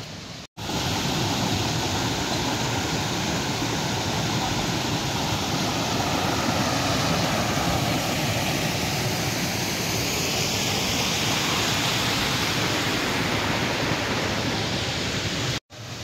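Dudhsagar Falls' water pouring down in a steady, dense rush, starting sharply about half a second in and cut off just before the end.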